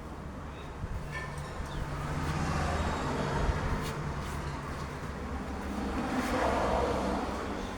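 Road traffic: a motor vehicle's engine hum and tyre noise swelling up as vehicles pass, loudest twice, about three seconds in and again near the end.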